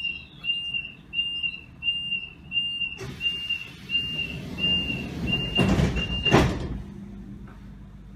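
Door-closing warning beeps of a DB class 422 S-Bahn electric train standing at the platform: a high, steady beep repeating a little under twice a second, stopping about six seconds in. From about three seconds in, a hiss of air builds and peaks in two loud whooshes just before the beeping ends, then the train hums quietly.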